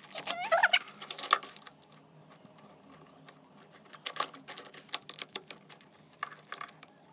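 Hard plastic parts of a take-apart toy bulldozer clicking and knocking as they are handled and screwed together with a toy screwdriver: scattered sharp taps, irregularly spaced.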